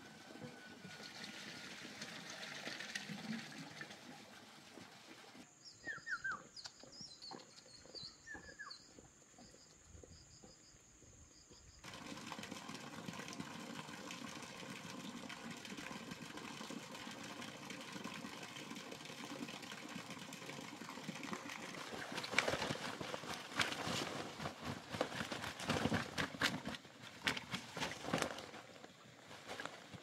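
Outdoor countryside ambience with short bird chirps and a steady high insect-like tone for several seconds. Then rustling and a run of footsteps and brushing through grass and leaves in the last several seconds.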